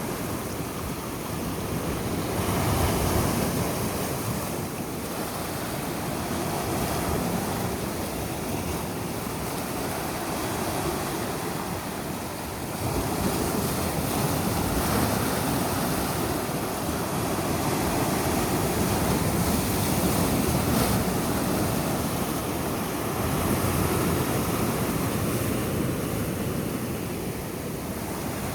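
Sea waves breaking and washing on a beach, a continuous rushing surf that swells and eases every few seconds, with some wind on the microphone.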